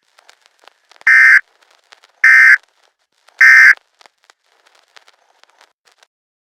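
Emergency Alert System end-of-message signal: three short, loud bursts of buzzing SAME digital data tones, about a second apart, closing the alert. Faint crackling clicks lie between the bursts.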